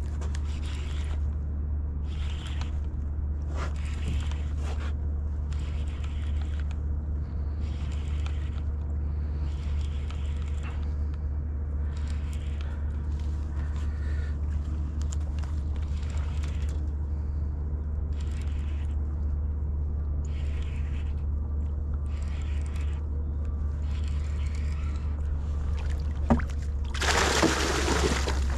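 A hooked fluke (summer flounder) being played up to the boat, with short swishing bursts every couple of seconds over a steady low hum. Near the end it thrashes at the surface with a loud splash as it is scooped into a landing net.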